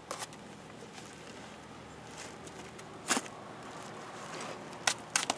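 A few short scratches and clicks of a utility knife cutting packing tape and working at styrofoam packaging: one near the start, one about three seconds in and two close together near the end, over a faint steady background.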